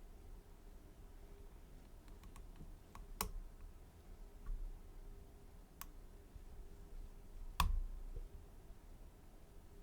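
Sparse small metallic clicks of lock picks working inside a Mul-T-Lock Garrison lock: a few faint ticks, then three sharper clicks spaced a couple of seconds apart, the last the loudest. A faint steady hum sits underneath.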